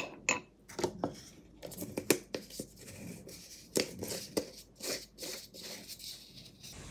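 Small kitchen handling sounds: a wooden spoon knocking in a mug a few times, then the lid of a glass instant-coffee jar being twisted shut, a run of short scratchy scrapes and clicks.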